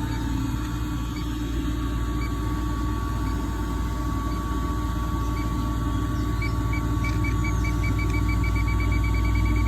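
Electronic refrigerant leak detector beeping over a steady machine hum: the beeps come a second or so apart at first, then speed up to about five a second in the last few seconds, the quickening that signals it is picking up leaking refrigerant.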